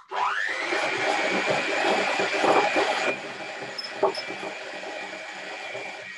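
Electric hand mixer switching on and whisking coconut cream, its motor whine rising in pitch as it gets up to speed and then holding steady. It gets quieter about three seconds in, with a couple of short clicks around four seconds.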